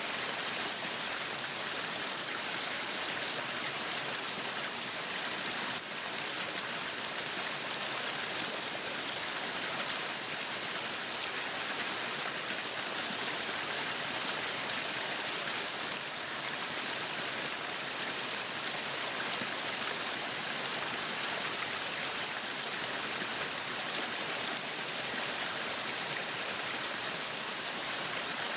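Meat sizzling on a yakiniku grill: a steady, unbroken sizzle.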